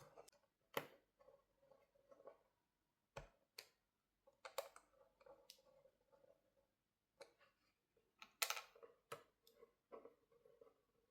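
Faint, scattered clicks and taps of a smartphone's small plastic and metal parts being handled and pressed together while its motherboard cover is fitted back in place, the loudest click about eight and a half seconds in.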